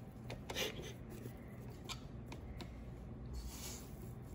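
Spatula scraping thick cookie dough off a stand mixer's raised flat beater and around a stainless steel mixing bowl. Scattered light clicks and taps run through it, with a brief rustle near the end.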